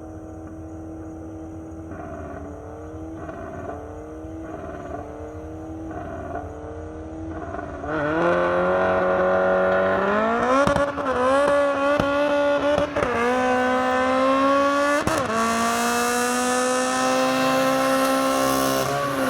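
Car engine at first quieter, its pitch rising and falling in short repeated revs. About eight seconds in it becomes much louder and accelerates hard, climbing in pitch with three quick drops at the gear shifts. At the very end the pitch falls sharply.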